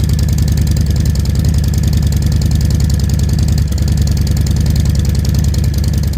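Harley-Davidson Milwaukee-Eight 117 V-twin idling steadily through its exhaust, with a loping, even beat.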